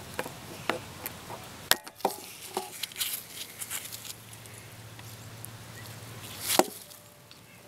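Screwdriver clicking and scraping against an old floor-mounted headlight dimmer switch as it is pried at. Irregular sharp clicks, some with a short ring, and a louder scrape about six and a half seconds in.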